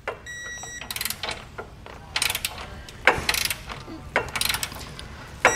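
Ratcheting torque wrench clicking in several short bursts as a bolt is tightened down to the manufacturer's torque setting.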